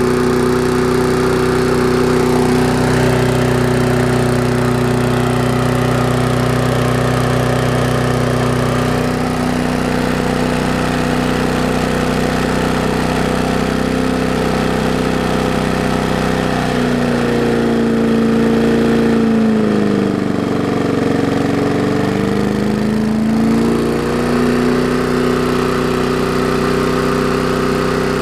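Late-1970s Briggs & Stratton single-cylinder engine on a Murray push mower running steadily with its blade fitted. About two-thirds of the way in, the engine speed sags and then picks back up.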